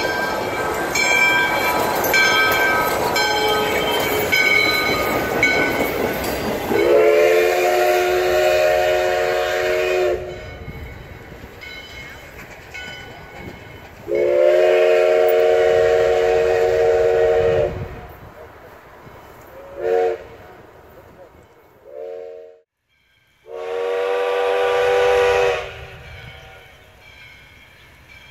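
Steam locomotive (ex-FEC 4-6-2 Pacific #148) passing close by with a loud clatter of wheels on the rails, then its chime whistle blowing a chord of several notes: two long blasts, two short toots, and after a brief break another long blast, quieter.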